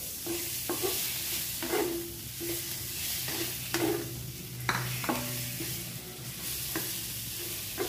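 Pieces of chili-paste-coated catfish sizzling in hot oil in a stainless steel wok, with a steady hiss. A wooden spatula stirs and turns them, knocking and scraping against the pan several times.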